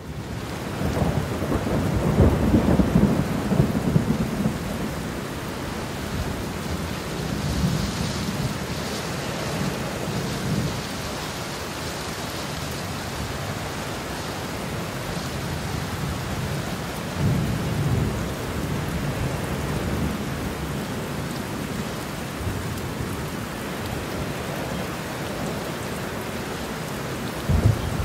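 Steady heavy rain with thunder rumbling low beneath it. The loudest peal comes a couple of seconds in, another comes around the middle, and a sharper one arrives near the end.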